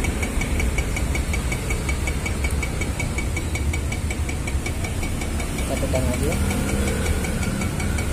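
Klaz automatic espresso machine's pump running steadily while pulling an espresso shot: a low buzz with a fast, even ticking.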